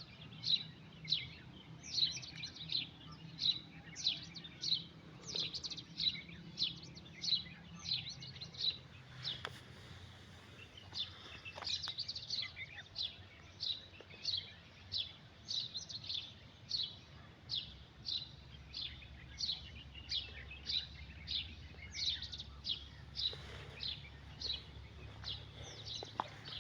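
Bird chirping: a steady run of short, high, downward-sliding chirps, about two or three a second, over a faint low hum.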